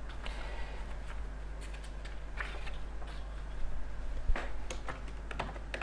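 Computer keyboard keystrokes: a few irregular, scattered clicks over a steady low hum.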